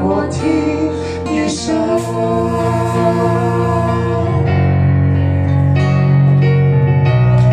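A man and a woman singing the closing line of a duet live, holding the final note together over backing music with keyboard; about four and a half seconds in their voices end and the instrumental outro plays on.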